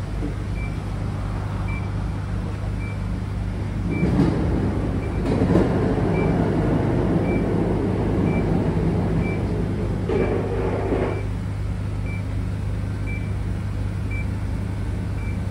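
Steady low hum of idling vehicle engines, with a faint short high beep about once a second from the HUNTER H2 hydrogen tracer-gas leak detector. A louder rush of noise comes in from about four to eleven seconds in.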